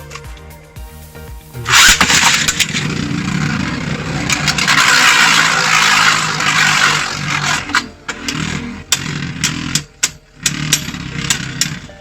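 Beyblade tops ripped from a ripcord launcher into a plastic stadium about two seconds in, spinning with a loud scraping whir, then a run of sharp clicks as the tops knock against each other and the stadium walls. Background music plays underneath.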